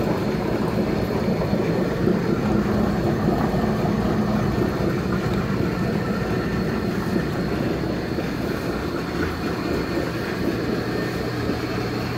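Homemade belt-driven stone grist mill running, a steady mechanical noise with a low hum that holds even throughout.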